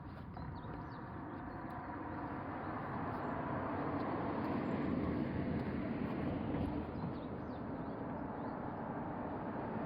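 Outdoor background noise: a steady rumbling hiss that grows louder over the first few seconds and then holds.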